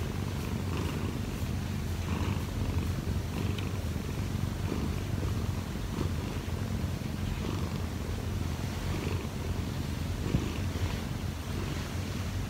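Munchkin cat purring close to the microphone, a continuous low rumble with a regular swell every second or so.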